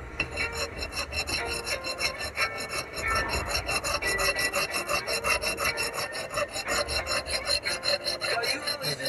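A steel blade being sharpened by hand, with a sharpener stroked quickly and evenly back and forth along the edge in a steady rasping rhythm.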